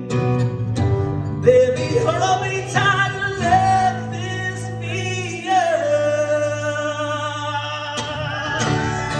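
A man singing to an acoustic guitar, holding long notes with a wavering vibrato.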